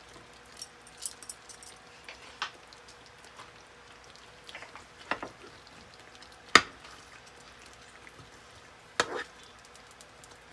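Spatula stirring thick curry in a frying pan: scattered sharp taps and knocks against the pan, the loudest about two-thirds of the way through, over a faint hiss.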